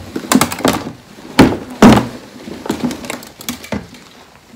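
Clear plastic storage boxes knocking together as a heap of prize rosettes is tipped from one box into the other: a run of clattering knocks and rustles, with two loud thunks near the middle.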